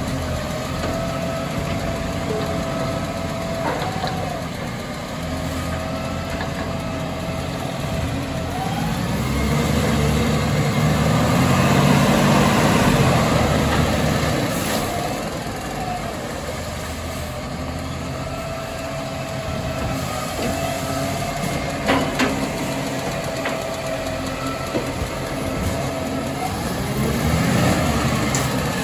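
Side-loader recycling truck's diesel engine running, growing louder for a few seconds midway and then settling, with a sharp knock about three-quarters of the way through.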